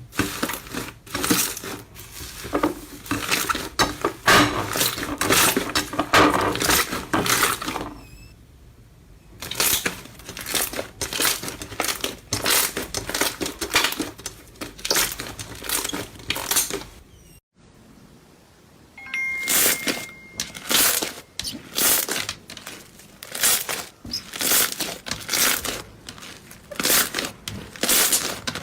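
Slime being squeezed, pressed and pulled by hands, giving quick irregular runs of crackling, clicking pops. It drops quieter for a moment about eight seconds in, and breaks off sharply just past halfway before starting again.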